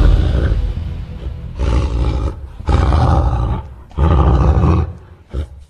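Deep animal roars used as a sound effect: three long roars of about a second each, then a short one near the end, after the fading tail of a deep musical hit.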